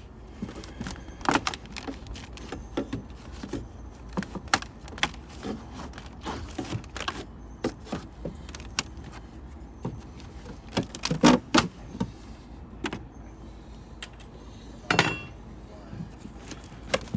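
Sheet-metal trim being pried off old wooden framing: irregular metallic clinks, scrapes and knocks, with a louder cluster about two-thirds of the way through.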